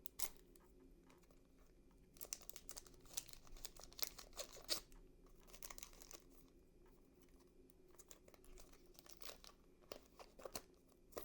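A One Piece card game booster pack's wrapper being torn open and crinkled by hand, in irregular crackling bursts that are busiest from about two to five seconds in, with a few more near the end.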